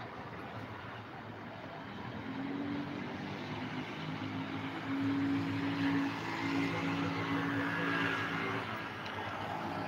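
Road traffic: cars passing on the road below, with a steady engine note that grows louder toward the middle and fades near the end.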